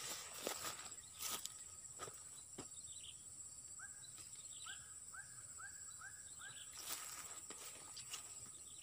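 Steady high-pitched drone of insects, with a quick run of six short rising chirps about four to six and a half seconds in, and a few faint scattered knocks.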